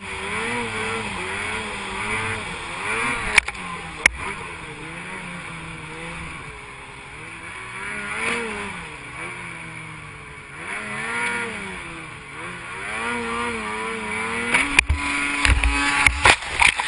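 Snowmobile engine running under way, its pitch rising and falling over and over with the throttle. There are two sharp clicks a few seconds in, and a quick run of knocks and thumps near the end.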